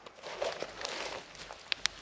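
Rustling and crunching in dry woodland leaf litter as a person moves and crouches, followed by two sharp clicks close together near the end.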